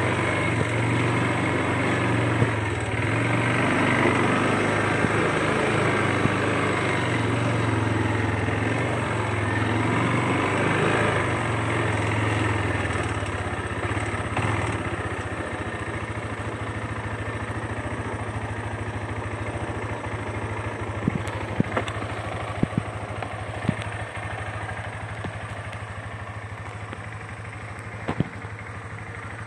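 ATV engine running under way on a dirt trail, its pitch rising and falling, then dropping to a steady idle about halfway through once the quad stops. A few sharp clicks sound near the end.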